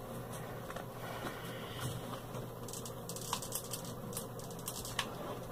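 Light handling noise of hands working craft materials on a tabletop: scattered small clicks and rustles as a straw hat and lace are pressed down and a hot glue gun is picked up and used, over a steady low hum.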